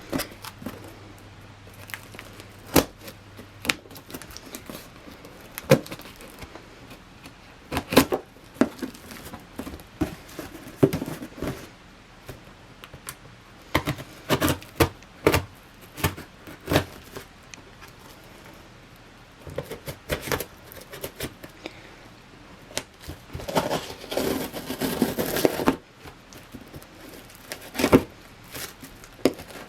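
Cardboard and plastic packaging being handled and opened by hand: scattered taps, clicks and knocks, with a few seconds of continuous rustling and tearing near the end.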